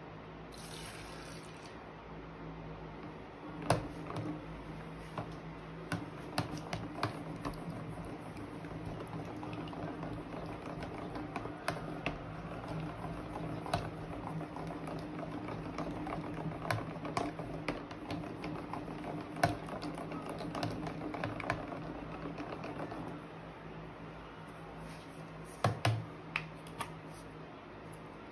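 A plastic spoon stirring a wet, foamy slime mixture in a plastic tub, with irregular light clicks and taps of the spoon against the container. A few sharper knocks come near the end.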